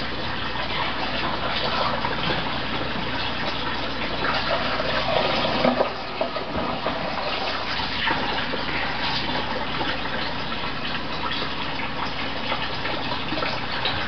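Water gushing and pouring steadily into a doll house as it floods, a continuous splashing rush with a brief louder surge a little before halfway.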